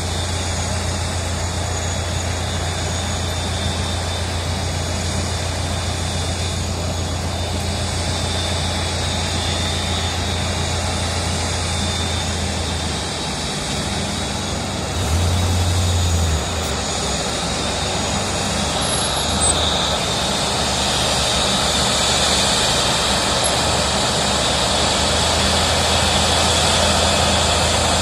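Airbus A380 jet engines running, a steady rush with a thin high whine over a deep hum, growing somewhat louder over the last several seconds.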